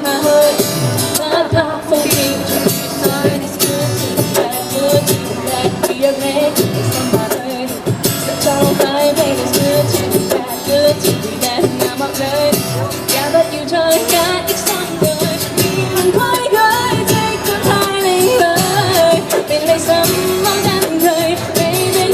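A teenage girl singing a Cantonese pop song live over a backing track, her voice amplified through a cheap busking microphone and street speaker.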